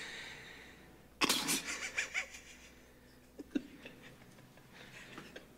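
A man's short, breathy laugh in several quick pulses, starting about a second in and lasting about a second, followed by quiet with one small vocal sound near the middle.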